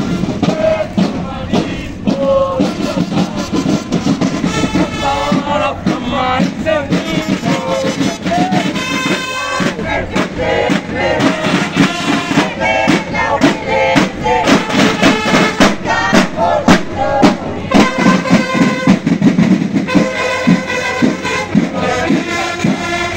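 Military marching band playing as it passes: rapid, steady drum strokes with horns carrying a tune.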